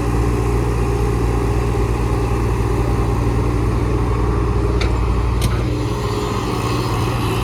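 JCB excavator's diesel engine running steadily, with two sharp knocks about five seconds in and a slight change in the engine note just after.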